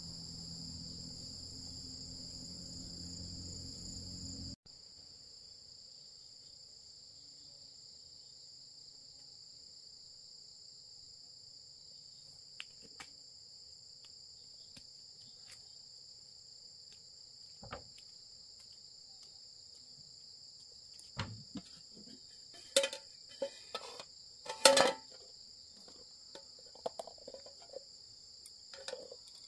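Insects trilling steadily in a high-pitched chorus. In the last several seconds, a metal pot and lid clank and knock a few times.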